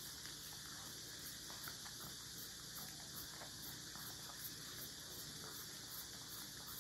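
Long-haired Chihuahua licking a frozen milk ice pop: faint, quick wet licking clicks, over a steady high hiss.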